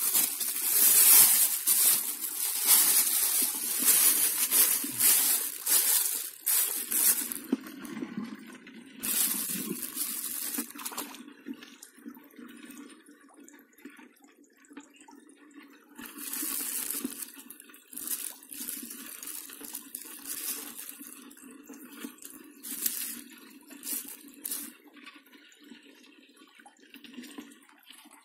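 A clear plastic bag being handled, crinkling and rustling in irregular bursts. It is busiest in the first ten seconds or so, eases off, then picks up again for several seconds past the middle.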